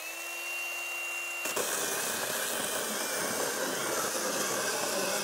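Milwaukee 3004-20 cordless pruning chainsaw with its electric motor running free at first, a steady whine, then from about a second and a half in its chain cuts into a wooden board with a loud, rough, steady cutting noise that lasts nearly to the end.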